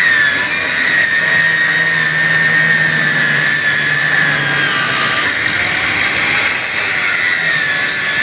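Nine-inch angle grinder running with a steady high whine over a dense hiss, its pitch sagging slightly and recovering.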